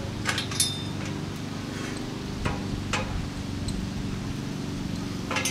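Short metallic clinks and taps from hardware and tubing of a metal swing-set frame being assembled, a handful of sharp clicks with the loudest about half a second in, over a steady low hum.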